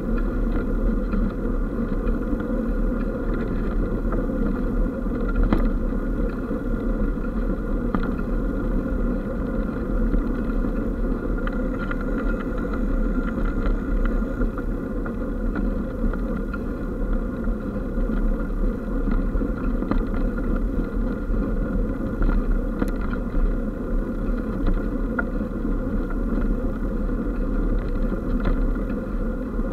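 Steady riding noise of an eBike rolling along a tarmac towpath, heard from a bike-mounted camera: tyre rumble and rattle with a steady hum, and a few small knocks from bumps in the path.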